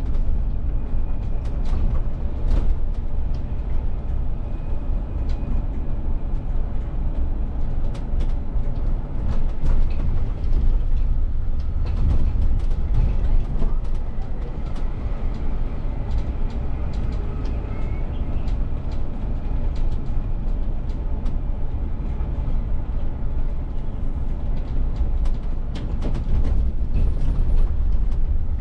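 Inside the driver's cab of a moving VDL city bus: a steady low rumble of the drivetrain and road, with frequent small clicks and rattles from the cab.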